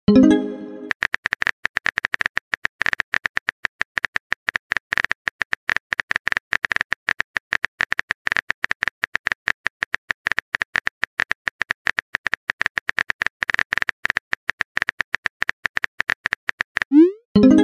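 Phone keyboard typing clicks from a texting app, a rapid run of short sharp ticks as a message is typed. A short rising swoosh with a ringing pop, the message-sent sound, comes at the very start and again near the end.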